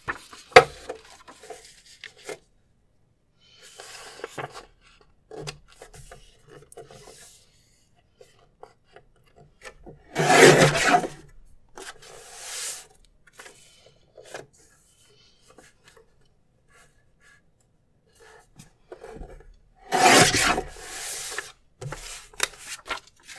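Paper trimmer cutting through printed planner sheets: two cuts with a rasp about a second long each, about ten seconds apart, with light paper rustling and small clicks as the sheets are lined up in between.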